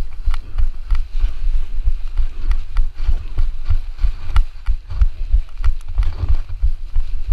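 Wind buffeting a GoPro camera's microphone, a low, uneven rumble, with scattered sharp clicks.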